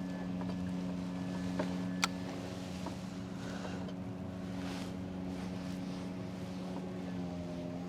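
Steady engine drone of a passing motor vessel or vehicle, a low even hum whose pitch shifts slightly near the end, with a couple of sharp clicks about two seconds in.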